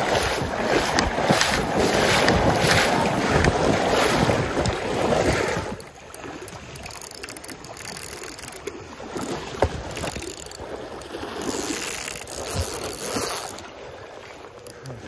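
Stream water splashing and rushing, loud for the first six seconds or so, then quieter with a few sharp clicks.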